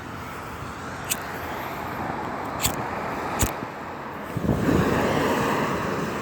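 Traffic passing on a rain-wet highway: a steady hiss of tyres on the wet road that swells about four and a half seconds in as a vehicle goes by. A few sharp clicks come in the first half.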